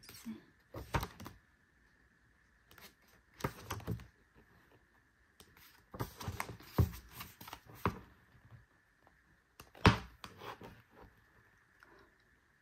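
Pages of a thick, stiff-bound photobook being turned and handled: irregular paper rustles with sharp taps and clicks, the loudest a little after halfway and near the end.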